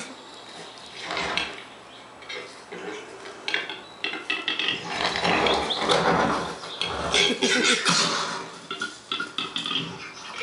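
Male black grouse sounds from a nature documentary heard through TV speakers: irregular calls mixed with a clicking, scuffling clatter from fighting birds, loudest in the middle.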